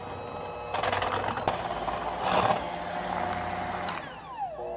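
Five-speed electric hand mixer running with its beaters in thick cake batter, mixing in flour. Near the end the motor's whine falls in pitch and carries on at the lower speed.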